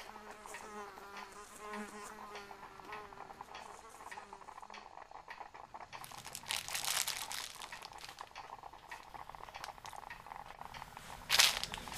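A buzzing insect drones, wavering in pitch, and fades out about halfway through. A rustle follows, then a sudden loud crinkling near the end.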